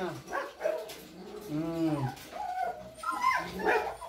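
Golden retriever puppies whining and yelping: a few short yelps and one longer whine that rises and falls about halfway through.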